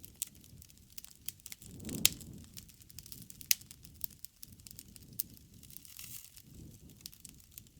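Wood campfire burning: a low steady rush of flame with irregular sharp crackles and pops from the burning wood, the loudest pop about two seconds in.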